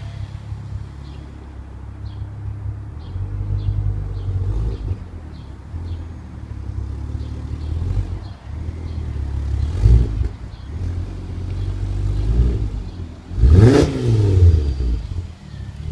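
Tuned 450 bhp Ford Focus RS engine and exhaust running and being revved again and again, the revs swelling and dropping back, with the loudest, sharpest rev about three-quarters of the way through.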